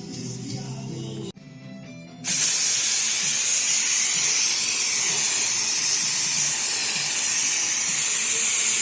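Background music stops about a second in. About a second later a loud, steady hiss starts and holds level.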